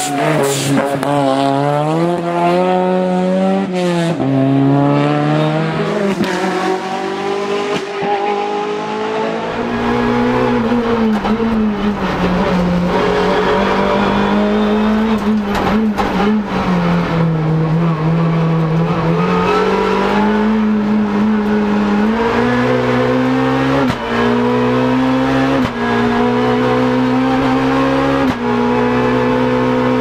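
Race car engines at hill-climb speed. First a Ford saloon rally car revs up and down as it rounds a hairpin. From about ten seconds in, the sound comes from inside a small rally car's cabin: the engine runs hard under a deep rumble, and near the end it is cut by quick gear changes every second or two.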